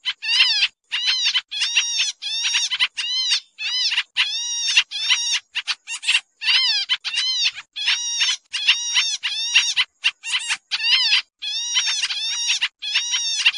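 Pied trillers (kapasan kemiri) calling noisily: a fast, unbroken string of short, harsh, nasal notes, each rising and then falling in pitch, about three a second with brief gaps.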